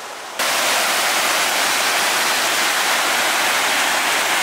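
Small waterfall rushing, a loud, steady sound of falling water that cuts in abruptly about half a second in.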